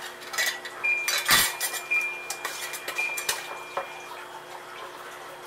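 Metal canning lids and screw bands being put on and twisted finger tight onto glass mason jars: a run of clinks and scrapes of metal on glass, busiest in the first four seconds, then quieter.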